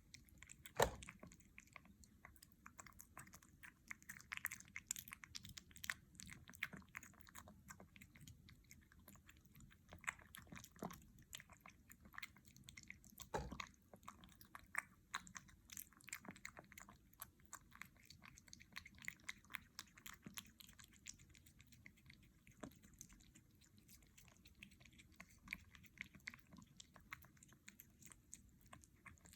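Kitten eating wet cat food: faint, rapid, irregular wet chewing and smacking clicks, with a few louder clicks about a second in and again about halfway through.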